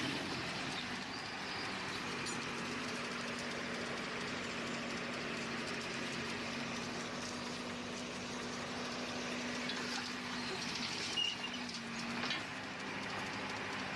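Heavy road-works machinery running steadily, a constant engine hum with a steady drone in it, and a couple of brief louder knocks near the end.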